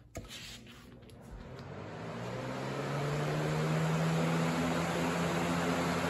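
Lasko 3733 box fan switched straight to high: a click of the rotary knob, then the motor and blades spin up over about two seconds into a steady rush of air with a low motor hum underneath. Pretty loud.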